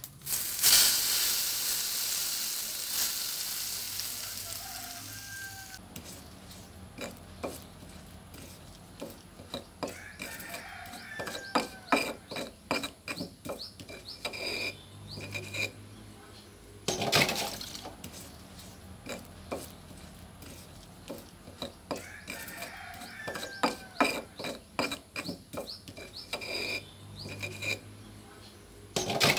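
A stone pestle mashing and stirring chilies on a stone mortar for sambal korek. A sizzle starts about half a second in and fades over about five seconds. After it come bursts of quick scraping and knocking strokes of stone on stone, with one louder knock about halfway through.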